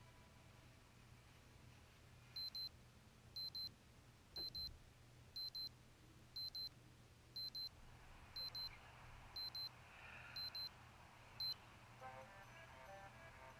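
Digital alarm clock beeping in quick pairs, a high double beep about once a second, ten times, stopping after about eleven seconds. Music comes in near the end.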